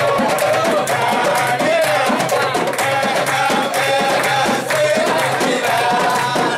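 Lively music with a singing voice over a steady drum beat, with people clapping along.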